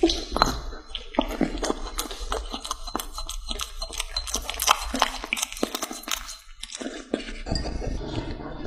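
Kitten licking and chewing chunks of raw meat: quick, irregular wet clicks and smacks over a steady low hum.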